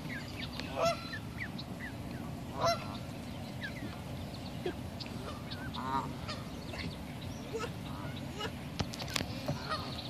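Canada geese and their goslings calling: many short rising peeps, with two louder calls about a second and nearly three seconds in, over a steady low background noise.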